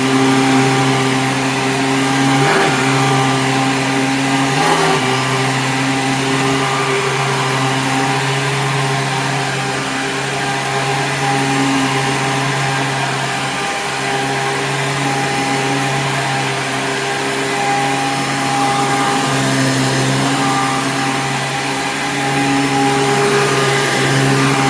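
Hoover Sprint upright vacuum's 12-amp motor running steadily with an even hum, wavering briefly a couple of times a few seconds in.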